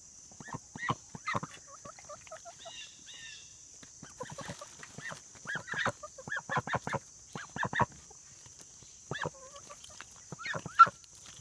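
Domestic fowl calling: short calls in quick clusters, louder towards the middle and with one sharp peak near the end. A steady high chirring of crickets runs underneath.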